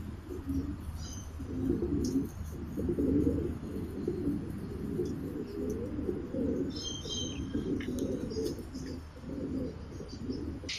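Several caged pigeons cooing, their low coos overlapping, with a short run of high chirps from small birds about seven seconds in.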